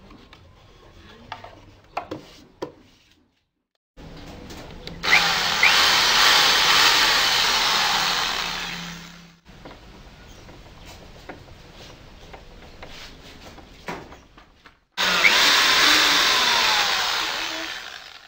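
Corded electric hand drill running in two spells of about four and three seconds, each trailing off at its end, with light knocks and clicks of hand tools on wood between them.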